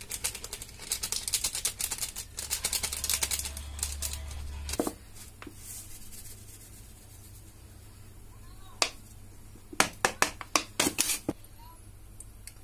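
A paper spice packet is crinkled and torn open by hand for the first few seconds, a dense crackly rustle. Near the end comes a quick run of sharp clicks and taps as salt is shaken in from a plastic jar.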